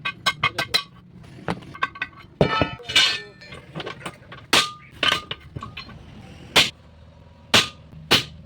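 Metal striking and clinking, as in tools hammering at a tyre rim: a quick run of about six strikes at the start, then single knocks every second or so, several leaving a brief ringing tone.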